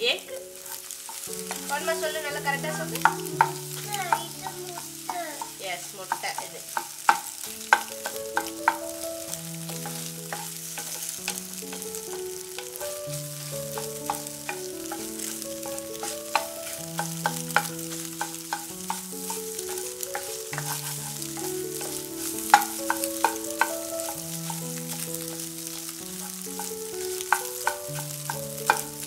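Wooden spatula stirring and scraping scrambled egg in a non-stick pan as it fries in oil, with many sharp knocks of the spatula against the pan. Slow background music of held notes runs underneath.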